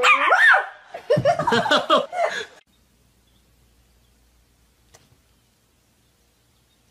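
Small dog yelping and whining in high, rising cries that cut off abruptly about two and a half seconds in, followed by near silence.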